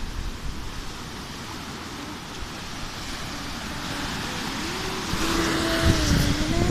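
A motor's steady hum over a noisy wash, growing louder through the second half.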